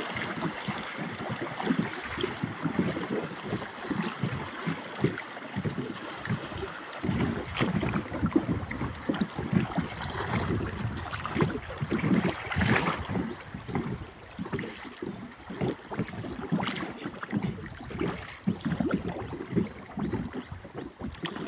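Fast river water rushing and splashing around a small paddled canoe as it runs down rapids, in uneven surges, with wind buffeting the microphone.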